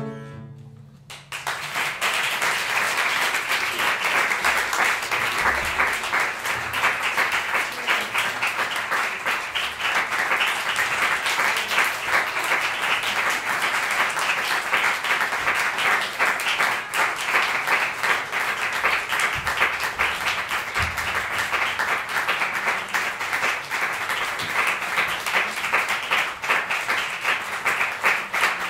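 The last chord of a double bass and piano fades out in the first second. After a brief pause, an audience starts applauding a little over a second in and keeps up steady clapping.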